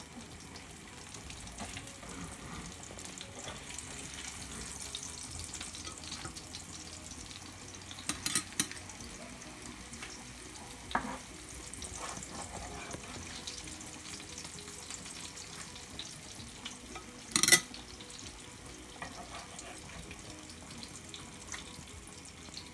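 Pangasius fish steaks sizzling in hot oil in a frying pan, a steady hiss, with short clinks of a metal slotted spatula: a few together about eight seconds in, one near eleven seconds, and the loudest about seventeen seconds in.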